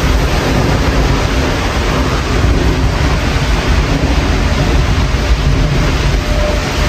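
Strong storm wind buffeting the microphone: a loud, unbroken rush with a gusty, rumbling low end, with road traffic blended into it.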